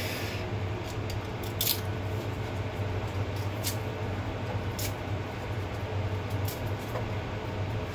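Garlic cloves being peeled by hand: a few light, sharp crackles and clicks of papery skin, spaced irregularly, over a steady low hum.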